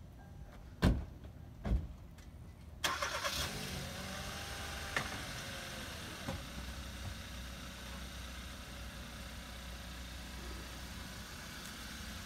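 Two door thumps, then a Hyundai Accent hatchback's engine starts about three seconds in, briefly rises in pitch, and settles into a steady idle.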